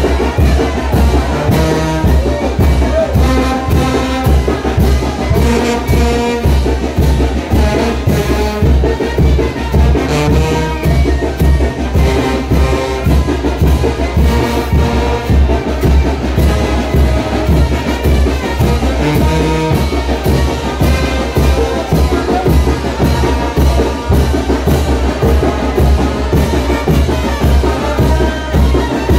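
Brass band playing chinelo dance music, with trumpets and trombones over a steady drum beat.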